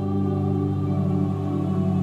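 Ambient background music of steady, sustained held tones.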